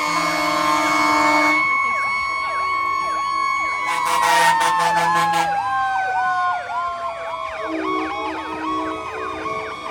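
Several fire engine sirens sounding at once in a passing parade: fast yelping sweeps overlap, while one wailing siren slides down in pitch from about four seconds in. Two loud steady blasts are heard, one near the start and one about four seconds in.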